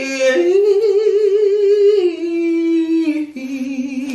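A man sings long held notes with vibrato, a playful drawn-out sung note. The pitch steps up shortly after the start, then drops about two seconds in and again near the end.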